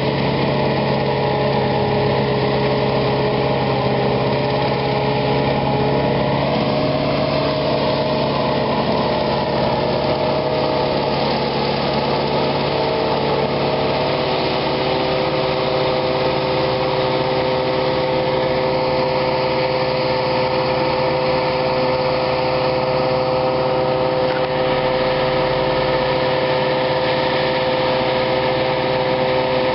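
Self-propelled forage harvester chopping maize with a tractor-drawn silage trailer alongside: a steady, loud engine and cutterhead drone with several held whining tones over a hiss of chopped crop.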